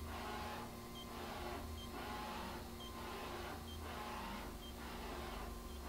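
The Mori Seiki NH4000 DCG machining centre's Y axis being jogged: a quiet servo-driven whir that swells and fades about once a second, each swell marked by a short high tick, over a steady machine hum.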